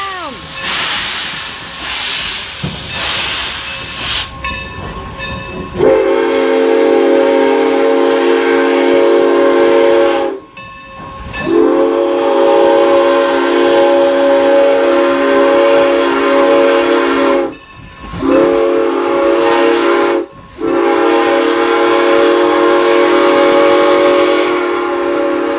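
Steam locomotive No. 475 pulling away, its exhaust chuffing over a steady hiss of steam. It then sounds its Southern Pacific six-chime steam whistle, a loud multi-note chord, in two long blasts, a short one and a final long one: the long-long-short-long signal for a road crossing.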